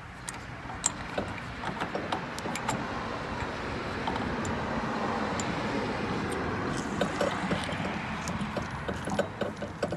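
A motor vehicle passing by, its steady noise swelling through the middle and fading near the end, over small metallic clicks of washers and eye bolts being handled and threaded on by hand.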